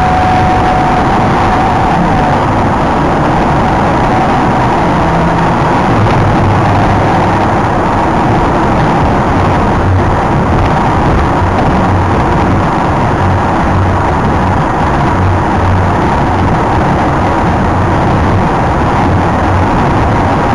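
Steady road and engine noise inside a car cruising at speed on a dual carriageway: tyre and wind noise with a low engine drone.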